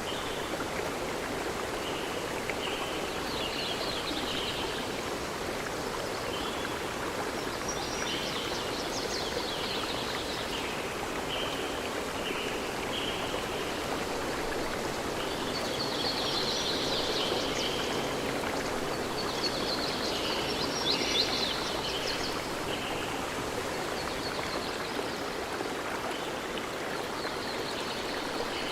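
Water of a stream flowing steadily, with birds chirping in short trilling bursts above it every few seconds.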